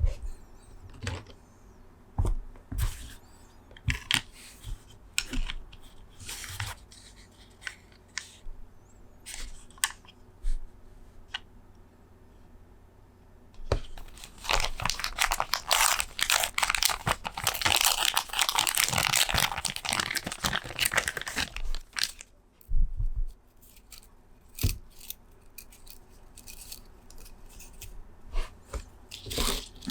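Hands working on keyboard parts: scattered small clicks and knocks, then about eight seconds of dense crinkling and tearing, like packaging or tape being torn and handled, before a few more clicks.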